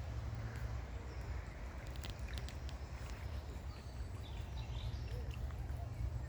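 Outdoor ambience: a steady low rumble with faint short bird chirps and calls scattered through, a few around two seconds in and again near the end.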